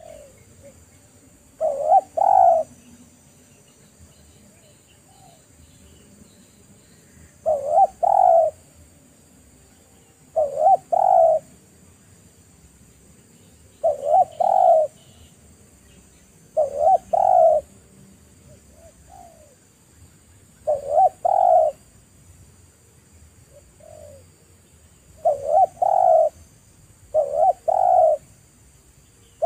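Spotted dove cooing: a short phrase of a few coos repeated eight times, about every three seconds, with a few fainter single coos in between.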